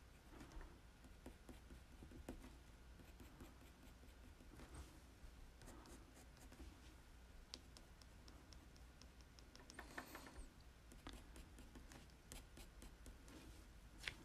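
Faint scratching of a pencil drawing on paper in short strokes.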